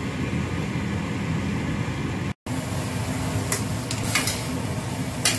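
Leafy greens sizzling as they are stir-fried in a stainless steel wok, with about three scrapes of a metal spatula against the pan in the second half. Before a cut about two and a half seconds in, only a steady rushing noise.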